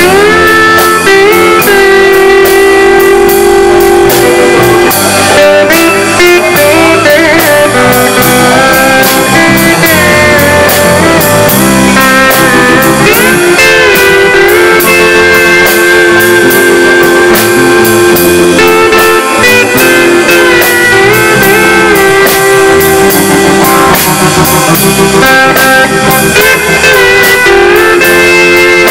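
Country band playing live through a PA: electric guitars and bass under a steel guitar with sliding notes, in an instrumental passage without singing.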